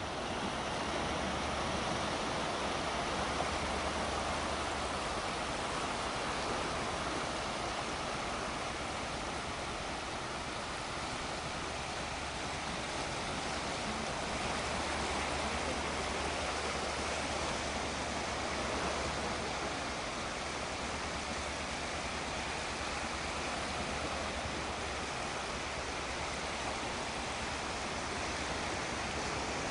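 Small sea waves breaking and washing up over a flat sandy beach: a steady rushing wash that swells and eases slowly.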